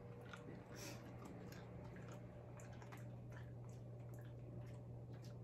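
Quiet room tone: a steady low hum with faint, scattered small clicks.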